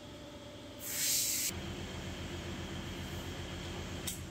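A sharp burst of hiss lasting under a second, about a second in, then a steady low machine hum that starts as the hiss cuts off, with a single short click near the end.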